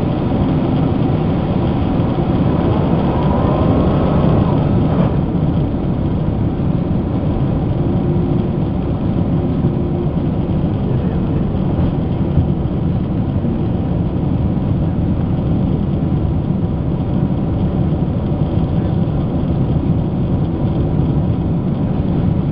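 Steady jet-airliner cabin noise inside a Boeing 767-300ER on approach, flaps extended: the low, even drone of engines and airflow heard through the fuselage. There is a single brief click about five seconds in.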